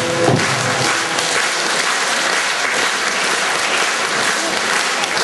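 Theatre audience applauding steadily as the troupe's music stops about half a second in.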